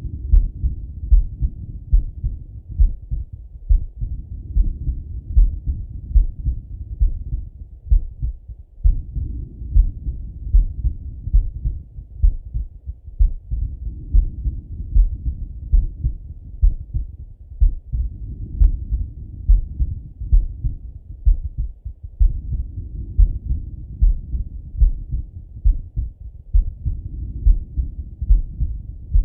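A man's heartbeat heard through a Littmann stethoscope on the chest: a slow, steady lub-dub of low thumps, about one a second. A soft whoosh of breath sounds swells and fades every four to five seconds.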